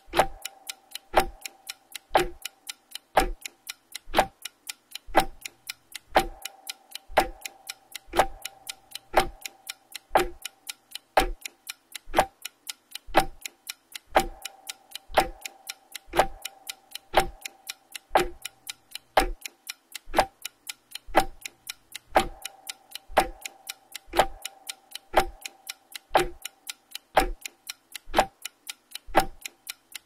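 Clock ticking sound effect: a steady, even tick roughly once a second, keeping time with a countdown timer.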